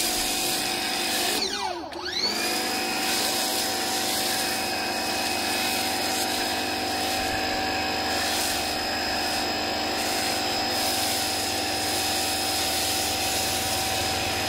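Pressure washer motor spinning up with a rising whine, winding down briefly about a second and a half in, then spinning up again and running steadily while it feeds a foam cannon.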